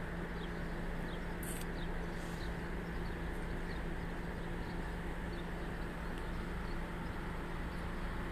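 Outdoor city street ambience: a steady low hum of traffic and engines, with faint, scattered bird chirps. A brief hiss comes about one and a half seconds in.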